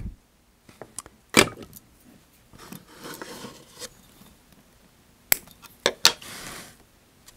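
Small metal hand tools (hemostat clamps, tweezers, scissors) clicking and clinking as they are handled and set down on a wooden workbench. There are a handful of sharp clicks, with soft handling rustle between them.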